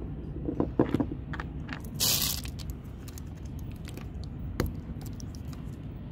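Metal deck hardware being handled by hand: light clicks and taps of bolts against a stanchion base about a second in, a brief rasping scrape about two seconds in, and a single sharp click near the end, over a steady low background rumble.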